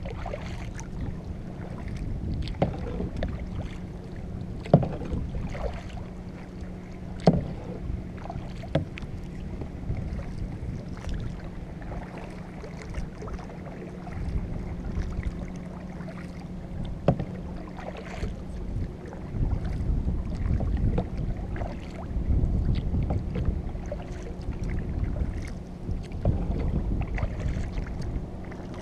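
Kayak paddle strokes dipping and splashing in calm water, with scattered sharp clicks and knocks. Wind rumbles on the microphone, heavier in the second half, over a steady low hum.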